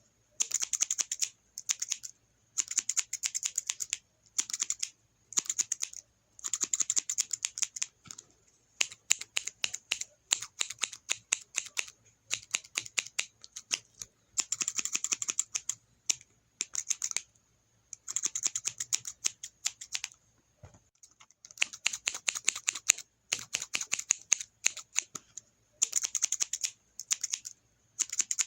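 Scissors snipping quickly and repeatedly, in runs of rapid cuts about one to two seconds long separated by short pauses.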